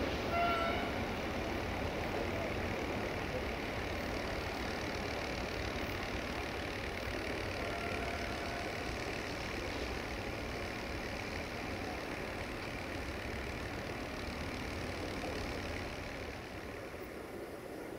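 Steady distant diesel engine rumble, easing slightly near the end, with a brief high tone about half a second in.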